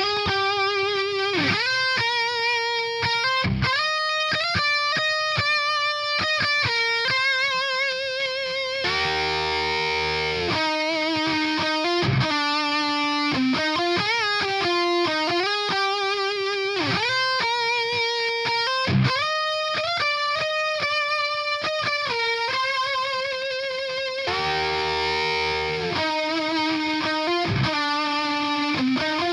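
Distorted electric guitar playing a lead line through the Audio Assault Bulldozer amp-simulator plugin, single notes with string bends and vibrato, broken twice by a brief low chord.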